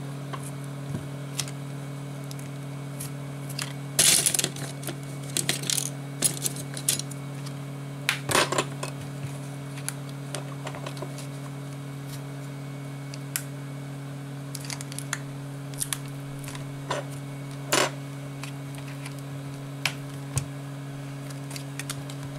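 A thin metal pry tool and plastic opening picks scraping and clicking against the edge of a Sony Xperia Z2 Tablet's cracked display glass as it is levered up off its adhesive. The sounds come in scattered bursts, the loudest about 4 and 8 seconds in, over a steady low hum.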